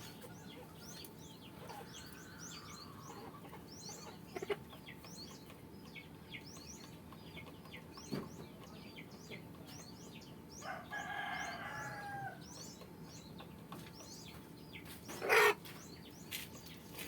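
Chickens calling and clucking over a steady twitter of many short high chirps. A rooster crows once, about two seconds long, a little past the middle, and a short loud call comes near the end.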